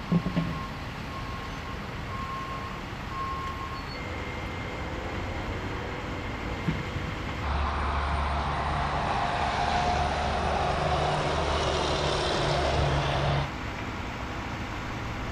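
Roadside traffic sound: a vehicle's backup alarm beeps about once a second for the first few seconds. Then a louder vehicle engine runs steadily for about six seconds and stops abruptly.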